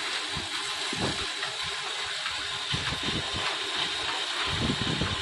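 Concrete-cutting machine running steadily: a constant noisy hiss over an uneven low rumble.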